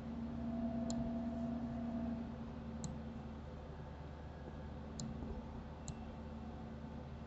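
Four sharp computer mouse clicks, spaced a second or two apart, over a steady low background hum; a held low tone sounds through the first two seconds.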